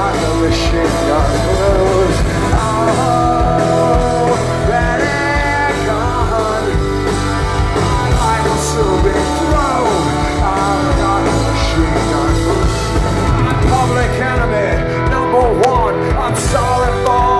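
Live punk rock band playing loud through a break between sung lines, with distorted electric guitars, bass and drums.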